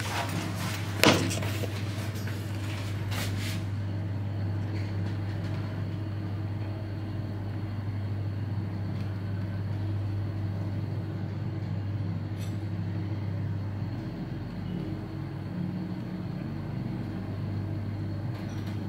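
Goldstar LVO scenic elevator car travelling between floors, its drive giving a steady low hum that shifts about fourteen seconds in. A sharp knock about a second in, and a fainter one a couple of seconds later.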